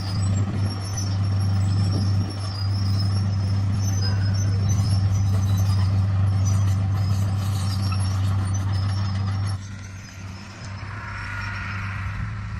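D41 bulldozer's diesel engine running with a steady low drone while working stone; about three-quarters of the way through the drone drops off sharply and a higher whine briefly rises.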